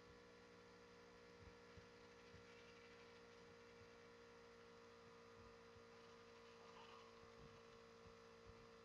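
Near silence with a faint steady electrical hum made of several constant tones.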